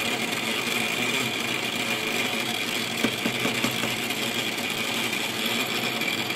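Betar SGV-15 household water meter whirring loudly and steadily as water rushes through it to fill a water heater, its impeller spinning fast. A few light clicks come about three seconds in. The meter is new, but the owner takes the noise as a sign it will soon fail.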